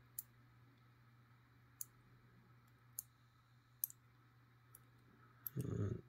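Number wheels of a small brass 28 mm three-digit combination padlock turned step by step while the shackle is held under tension: about six small, sharp detent clicks, unevenly spaced, as each wheel is probed for a gate.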